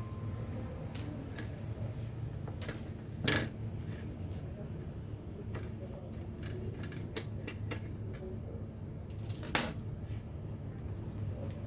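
Light clicks and clinks of small metal tools and parts being handled on a workbench, with two sharper clinks about three seconds in and about nine and a half seconds in, over a steady low hum.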